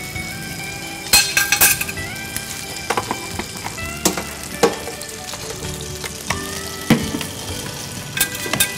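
Food sizzling and crackling as it fries, with scattered sharp clicks and clinks of kitchen utensils.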